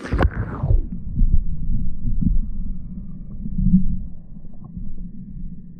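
Muffled low thumps and rumbling of camera handling. The stream's hiss cuts off suddenly at the start as the microphone is covered.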